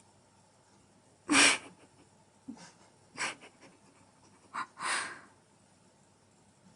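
Cat hissing in about five short, sharp bursts, the first and loudest about a second and a half in.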